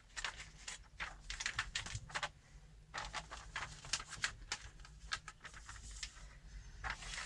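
Plastic window tint film crackling and crinkling as hands press and smooth it onto a soapy-wet window: a run of irregular soft clicks.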